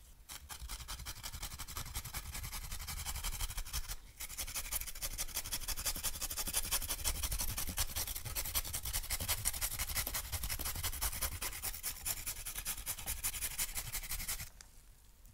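Raw sweet potato being grated on a flat hand grater, close-miked: fast, steady rasping strokes with a short break about four seconds in, stopping just before the end.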